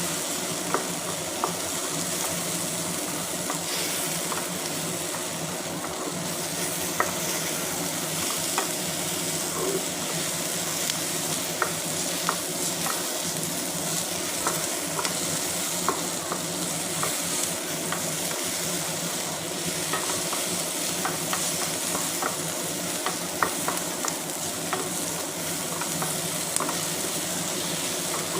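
Food sizzling steadily as it fries in a pan while being stirred, with a spoon clicking against the pan now and then.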